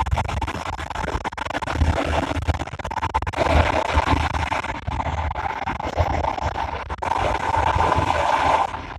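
Express train running at speed, heard from its front cab: a steady low rumble of wheels on rails with rattling and scraping. The noise swells twice, about three and a half seconds in and again about seven seconds in, then drops just before the end.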